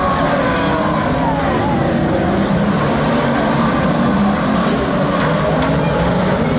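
A pack of banger racing cars' engines revving together on the track. Several engine notes rise and fall over one another over a steady rumble.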